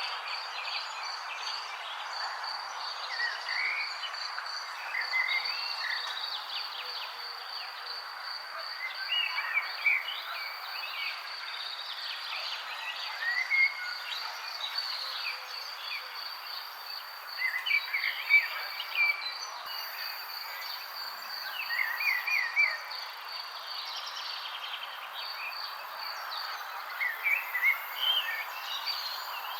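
Outdoor nature ambience: an unbroken, fast-pulsing high insect trill like crickets, over a steady background hiss, with birds chirping in short clusters every few seconds.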